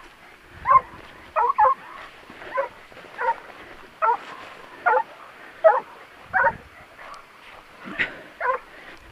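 Leashed hunting hound giving short, repeated barks, about one a second with a pause near seven seconds in, as it follows a wild boar's scent trail.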